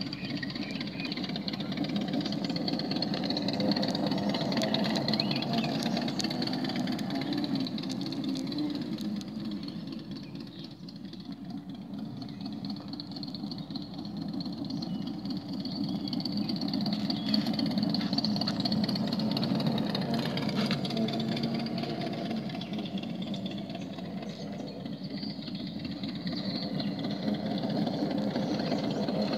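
Engine of a homemade self-balancing one-wheel motorbike running under way, with a Harley-like exhaust note. It swells and fades twice as the machine rides toward and away from the listener.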